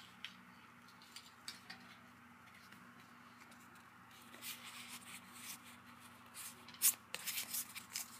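Pokémon trading cards being handled: faint rubbing and sliding of cards against each other, with a few light clicks and one sharper snap about seven seconds in, over a faint steady hum.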